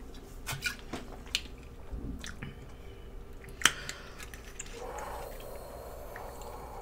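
Quiet eating sounds: a few small clicks and taps, the sharpest a little past halfway, then a soft rustle near the end.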